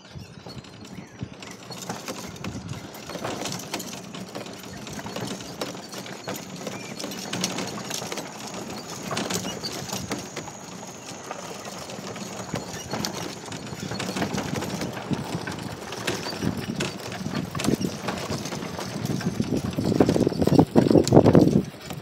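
Small open utility vehicle driving over a bumpy dirt trail, its body and windshield rattling and knocking over the ruts. The clatter grows louder about three seconds before the end, then drops off.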